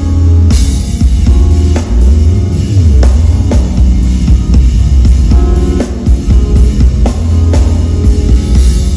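Live jazz band playing: keyboards over a drum kit with kick and snare, and a deep, heavy bass.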